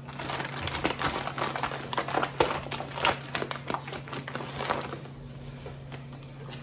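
Paper bag of sugar crinkling and rustling as it is handled and sugar is measured out with a measuring cup, a busy run of rustles that dies down about five seconds in.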